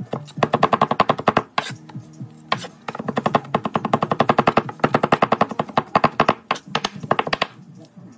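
Chef's knife rapidly chopping garlic on a plastic cutting board, about ten quick chops a second. The chopping pauses briefly after about a second and a half and stops shortly before the end.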